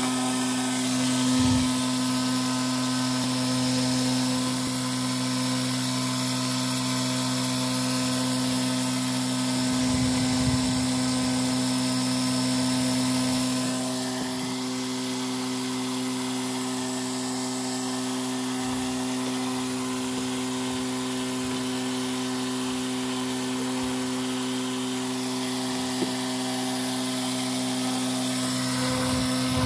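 Small brushed DC motor running at 12 volts and spinning a homemade transparent plastic-bottle propeller: a steady electric hum and whine that shifts slightly about halfway through. A few light knocks come over it.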